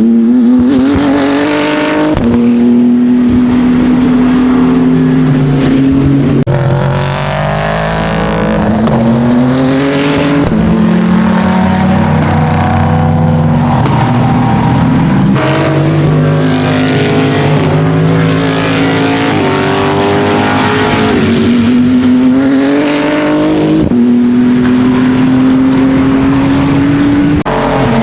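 BMW M4 GT3 race car's twin-turbo straight-six running hard, its pitch climbing steadily in each gear and dropping suddenly at each upshift, about five times.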